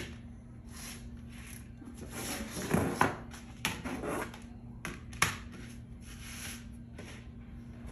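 Oiled raw potato sticks poured from a stainless steel mixing bowl onto air fryer trays: soft rustling slides of the fries, with a few sharp clicks as the bowl and fries knock against the trays, over a steady low hum.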